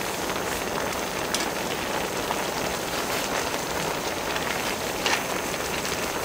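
Pork and kimchi stew boiling and sizzling in a cast-iron cauldron lid (sotttukkeong), a steady hiss, with a couple of light clicks of metal tongs against the lid.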